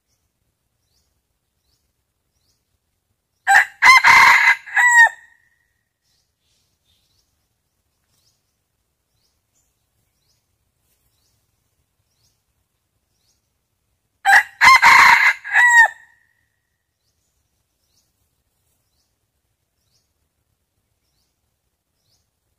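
Red junglefowl rooster crowing twice, about ten seconds apart, each crow lasting under two seconds, with silence between. It is a decoy cock's crow, the kind used to draw wild males in.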